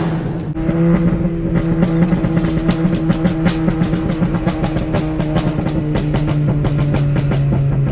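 Volkswagen Jetta 2.5 inline five-cylinder engine with its exhaust crackling and popping. Rapid, irregular pops sit over a steady engine note as the revs slowly fall. These overrun crackles come from an Integrated Engineering ECU tune.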